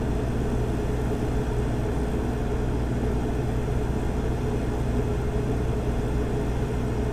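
Cummins 40 kW Quiet Connect standby generator with a Level 2 sound-attenuating enclosure, running steadily at 100% load: an even engine hum with a steady higher tone over it.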